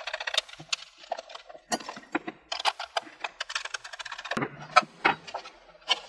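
Small metal parts of a homemade heat gun being handled and fitted together by hand, including a nut or screw turned on the fan's clamp. They make a string of clicks, scrapes and light knocks, with a sharper knock a little before the end.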